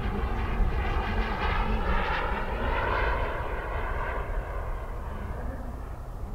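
Small gas turbine engine of a CARF Mephisto RC sport jet whining in flight, growing louder to a peak about halfway through and then fading as the jet passes and moves away.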